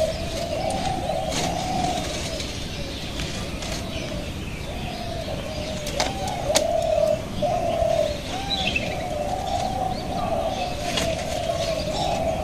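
Doves cooing almost without a break, a low wavering coo repeated over and over, with a few faint high chirps of small birds. A little past halfway there are two sharp clicks about half a second apart.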